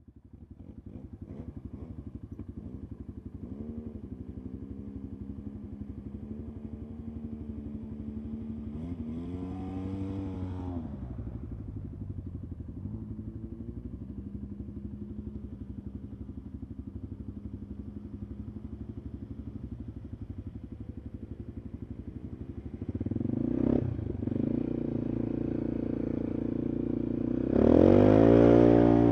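Polaris ATV engine running under way. Its note rises and falls as it revs about a third of the way in, gets louder later on, and revs hardest near the end.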